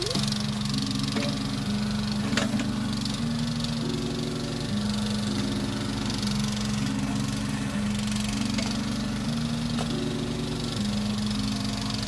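Jansen MB-300 mini backhoe's engine running steadily under digging load, with a simple background melody of held notes over it.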